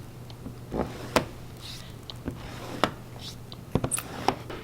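Handling sounds from the prep work: a few sharp clicks and light taps, the loudest about a second in and a small cluster near the end, over a steady low hum.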